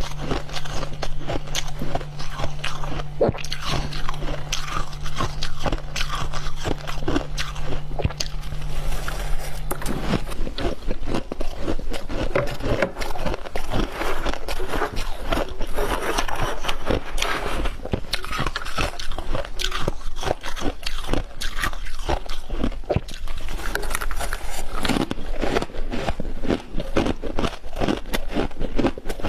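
Close-up crunching and chewing of freezer frost, a dense run of crisp bites and scrapes. A low steady hum underneath stops about a third of the way through.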